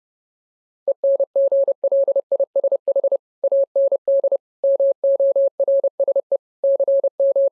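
Morse code: a single steady mid-pitched beep keyed on and off in quick dots and dashes, with short gaps between letters, starting about a second in.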